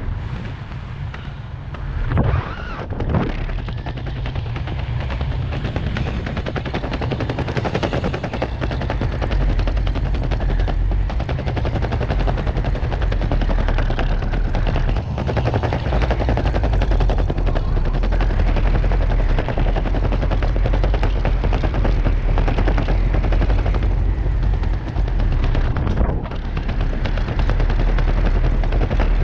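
Wind buffeting the microphone of a skydiver's body-worn camera during the descent under an open parachute: a dense, rough rumbling flutter, with two louder gusts about two and three seconds in.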